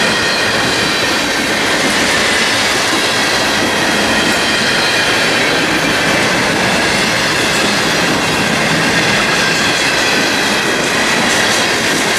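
Freight cars of a passing train rolling by at close range: a steady, loud rumble of steel wheels on rail, with a faint high wheel squeal running through it.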